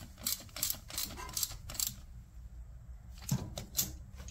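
Socket ratchet clicking in quick, uneven strokes as it works the clamp bolt of an ignition coil on the engine, then two louder knocks about three seconds in.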